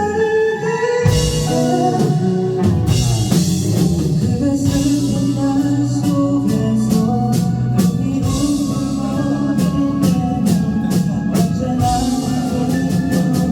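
Live rock band playing an instrumental passage of the song: electric guitars and bass over a drum kit. The drums come in about a second in, and the drum hits grow denser and faster near the end.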